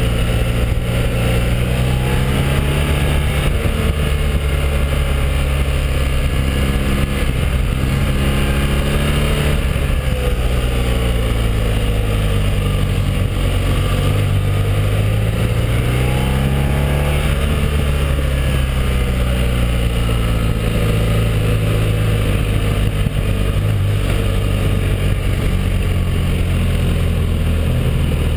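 BMW R1200R flat-twin motorcycle engine running at road speed, heard from the rider's seat over a steady rush of wind noise. The engine note falls and rises several times as the bike slows for bends and pulls away again.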